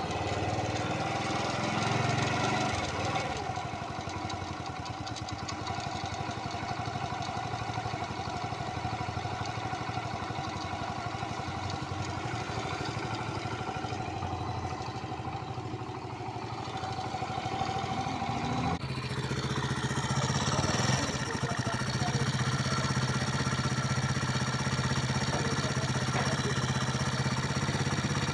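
Honda Pop 100's small single-cylinder four-stroke engine running steadily, making the engine noise that is being shown as abnormal. About 19 seconds in the sound gets louder and brighter and holds there.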